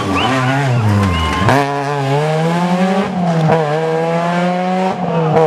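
Rally car engine accelerating hard, its note climbing and then dropping sharply at each gear change, about three shifts in a row.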